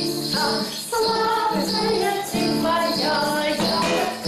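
Acoustic guitar strummed while a woman sings a children's song, with jingling hand percussion shaking along.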